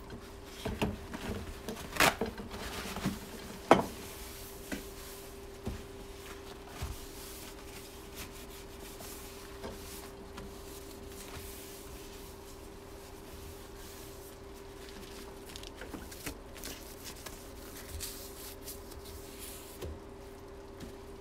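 Cloth wiping down a wet wooden butcher-block countertop, soft rubbing strokes, with a few sharp knocks in the first four seconds and a faint steady hum underneath.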